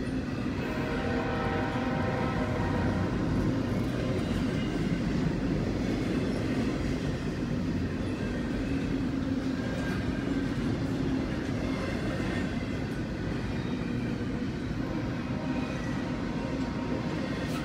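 Double-stack intermodal freight train of container well cars rolling past a grade crossing, a steady rumble of steel wheels on rail, heard from inside a car.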